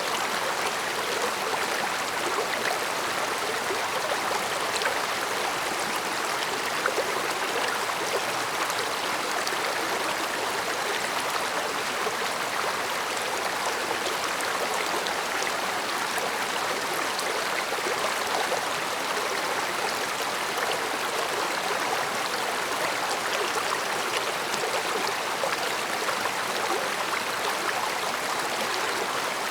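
A shallow stream running over rocks: a steady babbling rush of water with small splashes and trickles, even throughout.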